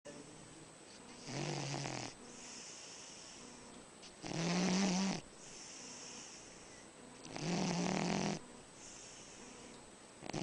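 A man snoring in deep sleep: loud, low, rattling snores about every three seconds, with softer breathing between.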